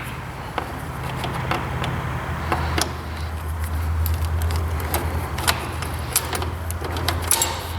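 Scattered light metallic clicks and taps as a screw and small metal parts are worked loose by hand, over a steady low hum.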